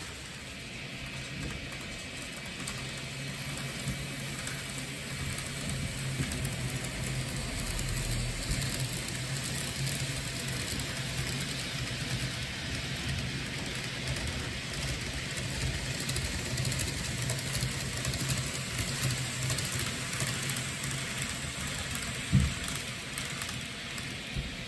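N gauge model train running along the layout track: a steady rolling hiss of small wheels on the rails with a low hum from the motor, and a single knock near the end.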